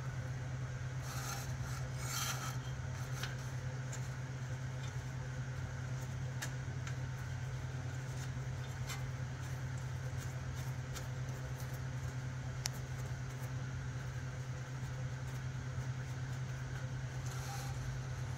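A steady low hum with scattered small clicks and handling noise; near the end, a short rustle as the yellow oil dipstick is worked out of the small engine's filler tube.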